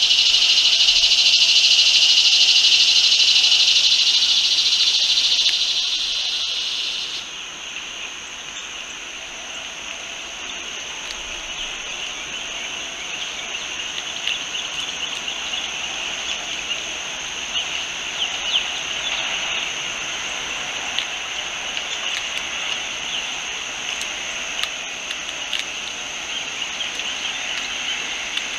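Steady high-pitched insect chorus, loud for the first several seconds and then cut off abruptly about seven seconds in, leaving a softer insect drone with a thin high trill and faint scattered ticks.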